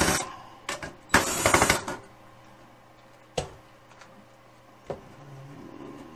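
DeWalt cordless drill/driver running in two short bursts within the first two seconds, backing screws out of a steel equipment cover. The longer burst lasts under a second. A few separate sharp clicks follow as the drill is set down and the metal cover is handled.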